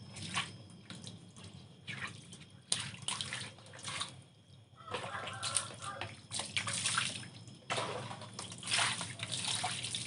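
Water poured from a plastic dipper, splashing onto a concrete floor and over a large freshwater eel as it is rinsed by hand, in a string of irregular splashes with short pauses between pours.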